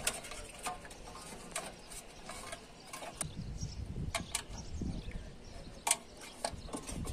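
Scattered, irregular clicks and knocks of hand tools and parts being handled during the swap of an air conditioner's outdoor fan motor, with a low rumble from about three seconds in.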